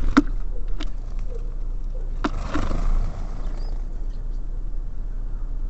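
Three sharp taps on a bird feeder, the third followed by a brief rustling scuffle, as birds land and move on it, over a steady low hum.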